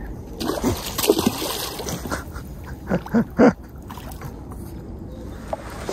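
Hooked fish thrashing and splashing at the water's surface on a lure line. Three short, loud, high yelps come close together about three seconds in.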